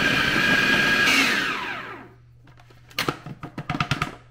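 Food processor running, cutting butter into flour and salt for pie crust; about a second in it is switched off and its motor spins down with a falling whine. Near the end comes a quick run of clicks and knocks.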